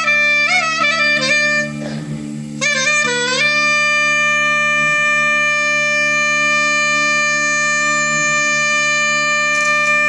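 Live Turkish classical music in the hicaz makam. A reedy wind instrument plays an ornamented melody with slides and wavers, breaks off briefly about two seconds in, then holds one long steady note from about three and a half seconds on.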